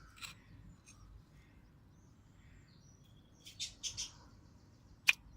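Small birds chirping in short high calls, loudest a little past halfway, with one sharp click near the end.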